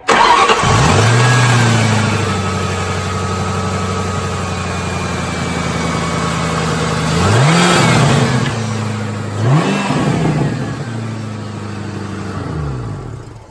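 Ford Mustang's engine catches and settles to an idle, is blipped up in revs twice, then is shut off and winds down near the end.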